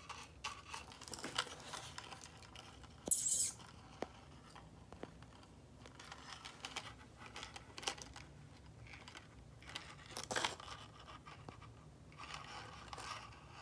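Handling noise as small gold chain bracelets are turned over in the hand: light rustling and scraping with a few small clicks, and a brief louder rustle about three seconds in.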